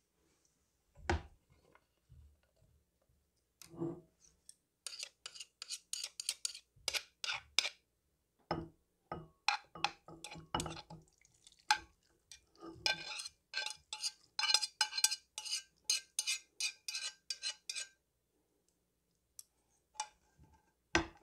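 A pot clattering against a ceramic bowl as ramen noodles and broth are tipped into the bowl: a knock about a second in, then long runs of quick clinks and taps of metal on ceramic.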